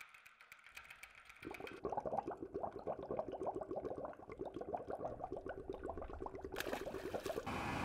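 A fast, dry run of small clicks and rattles, about ten a second, like a ratchet, starting about a second and a half in. A brief hiss comes near the end.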